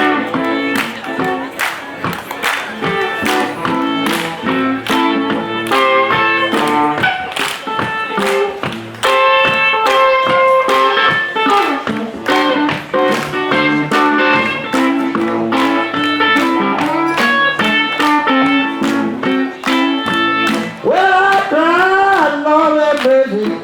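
Live blues band playing an instrumental break led by picked guitar over a steady rhythm, with sliding, bending notes near the end.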